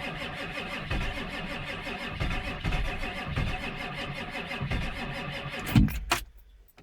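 Ford F-350 Power Stroke diesel V8 being cranked by its starter on a cold start, an even rhythmic cranking that does not catch. It stops abruptly near the end with a couple of clicks. The starter is failing and the batteries are weak.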